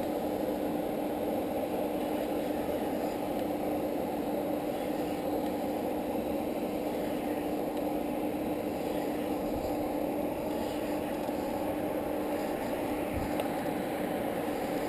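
Steady machine hum with one constant low tone over an even rush of falling water, from the hydroelectric power station and its weir; it does not change at all.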